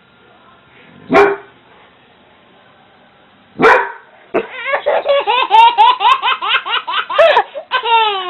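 A dog barks twice, single sharp barks about two and a half seconds apart, then an infant breaks into a long run of quick giggles, about four to five a second, each rising and falling in pitch, with another bark or two near the end.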